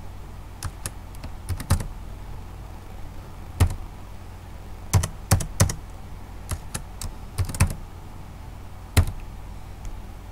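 Typing on a computer keyboard: irregular keystroke clicks, some in quick clusters of two or three, over a steady low hum.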